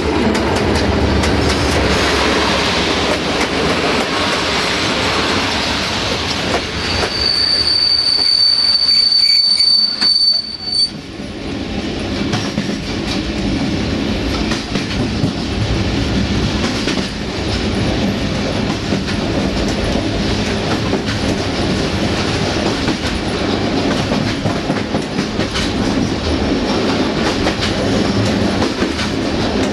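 Passenger coaches of a train rolling past close by, with a high, steady wheel squeal from about a quarter of the way in that lasts a few seconds. After that comes the running noise of the moving train heard from inside its rear coach: wheels clattering over the rails.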